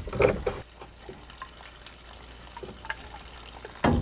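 Water dribbling and trickling from a drained supply hose, faint and steady, with a few sharp metal knocks near the start and again near the end as pipe wrenches work a brass fitting.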